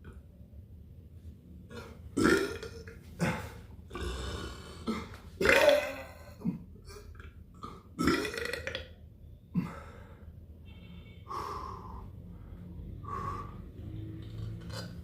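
A person burping repeatedly: a string of about eight burps, some short and some drawn out, at irregular intervals. The loudest come about two, five and a half, and eight seconds in.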